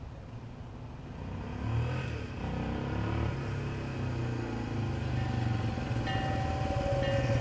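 Honda XL175's single-cylinder four-stroke engine running, growing steadily louder from about a second and a half in.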